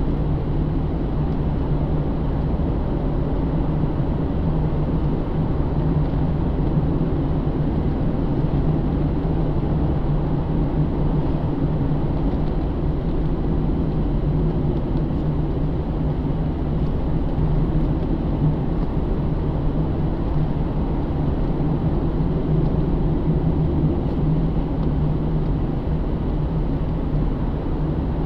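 2009 Pontiac G8 GT's 6.0-litre V8, fitted with a cold air intake, running steadily under way, with road noise, heard from inside the cabin.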